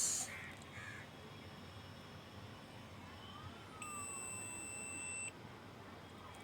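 A digital multimeter's beep: one steady electronic tone, about a second and a half long, starting a little past the middle.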